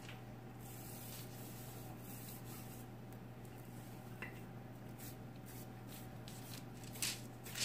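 Wooden rolling pin rolling out soft dough on parchment paper: faint rubbing and rustling, with a couple of light knocks near the end, over a steady low hum.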